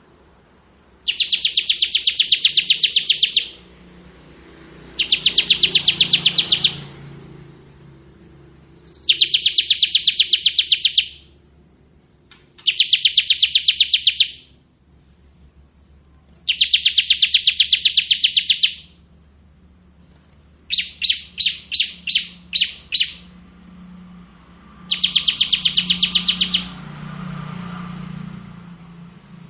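Bar-winged prinia (ciblek) singing its rapid, drilling 'ngebren' song: loud high-pitched trilled phrases of about two seconds, repeated roughly every four seconds. One phrase, a little past the middle, comes as a quick series of about seven separate notes instead of a continuous trill.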